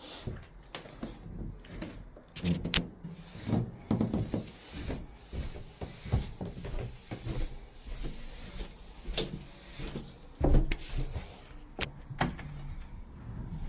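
Footsteps going down a carpeted staircase, a run of soft uneven thumps with some handling rustle. In the last few seconds a wooden door is handled, with a few sharp clicks and a loud knock.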